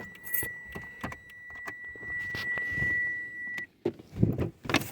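A steady high-pitched electronic tone that grows louder before cutting off suddenly about three and a half seconds in, over scattered clicks and knocks of parts being handled.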